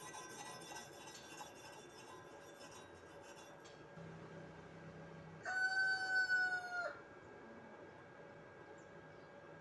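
A rooster crows once, a single held call of about a second and a half, a little past the middle. Before it, for the first few seconds, a hand wire brush scrubs slag off a weld bead on steel plate.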